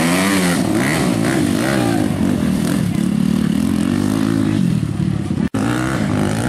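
Dirt bike engine revving up and down as it is ridden through mud, the pitch rising and falling over and over. The sound drops out for an instant about five and a half seconds in, then the engine carries on.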